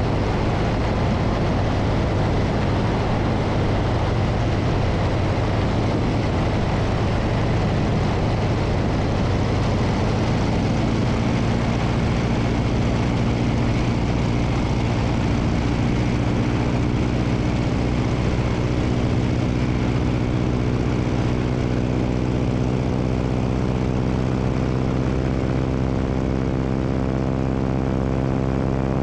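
A biplane's engine and propeller running steadily in cruising flight, with a loud rush of wind over the microphone. From about ten seconds in, the engine's pitched drone stands out more clearly through the wind.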